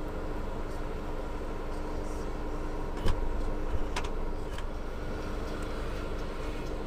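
Street traffic rumbling with a steady low hum. A few short sharp knocks come about three and four seconds in.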